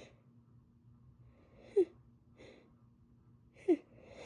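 A woman's sneeze buildup with a cold: airy breaths, broken twice by a sharp, short catching gasp with a falling pitch, about two seconds apart, without the sneeze coming.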